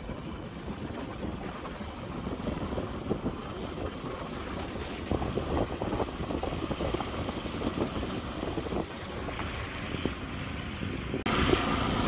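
Motorcycle or scooter riding along a road, its engine running under a rough rumble of wind buffeting the microphone. The sound gets louder and brighter about eleven seconds in.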